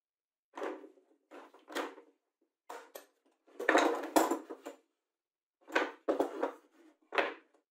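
Plastic spring clamps and a metal lever clamp being released and set down on a wooden workbench: a series of short clacks and rattles, the loudest cluster just past the middle.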